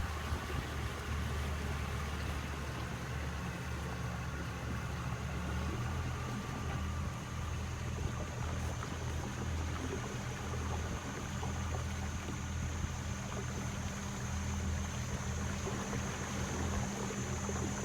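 Tour boat's motor running at a steady pace, a low drone, with a thin steady high-pitched tone above it.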